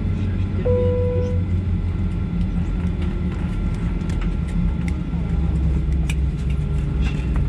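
Steady low cabin hum inside a parked Boeing 737-500, with a single chime about a second in, then scattered clicks and knocks and faint passenger voices.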